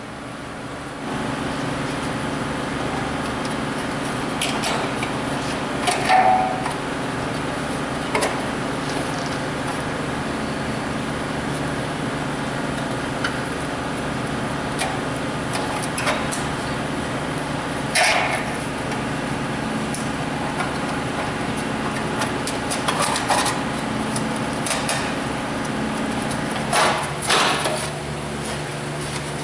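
Scattered metallic clinks and knocks of hand work on a truck's tin exhaust-manifold heat shield and its nuts, over a steady background hum that sets in about a second in. Near the end come a couple of louder rattles as the thin sheet-metal shield is pulled loose, loose because the manifold bolts under it are broken.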